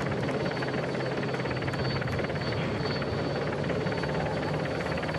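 Steady helicopter rotor and engine noise with a fast, even flutter, the background sound of aerial race coverage, with a thin steady high whine over it.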